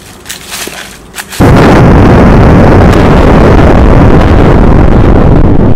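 An explosion sound effect that hits suddenly about a second and a half in: a loud, deep blast that carries on for over four seconds, flattened and distorted at full volume. Before it, only a few faint crackles.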